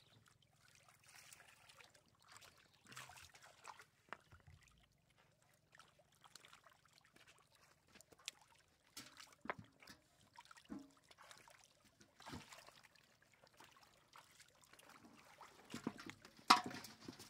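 Shallow stream water splashing and trickling as hands feel about among submerged rocks, in scattered short splashes and clicks, with one louder splash near the end.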